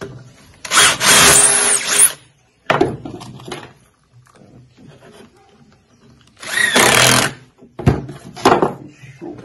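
Cordless drill running in two bursts of about a second and a half each, boring into a small wooden block. A few sharp knocks of wood between them.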